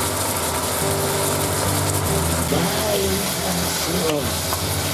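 Marinated chicken frying in sesame oil and garlic in a pan, a steady sizzle over a low, even hum.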